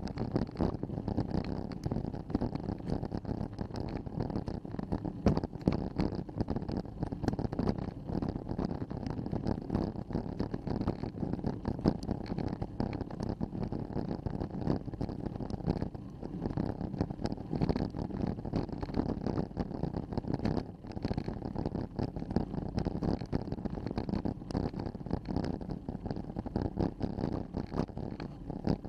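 Continuous low rumbling and crackling from a mountain bike ridden slowly uphill on a rough forest road, picked up through a handlebar-mounted action camera, with many small clicks and rattles from the bike and mount.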